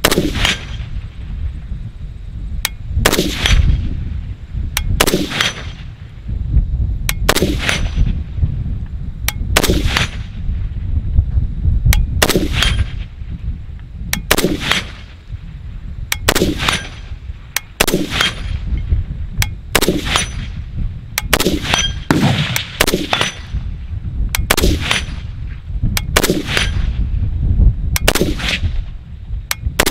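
Single, slow aimed shots from a WBP Fox AK-pattern rifle in 7.62x39, about one every two seconds. After each shot, a fraction of a second later, comes the ring of the 8-inch steel gong being hit at 100 yards.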